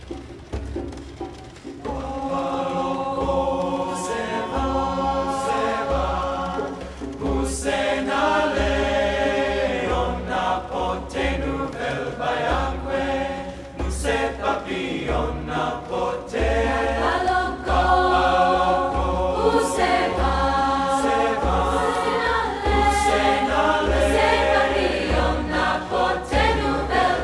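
Mixed youth choir singing a traditional Haitian song in parts over djembe hand drums keeping a steady beat; the voices come in strongly about two seconds in.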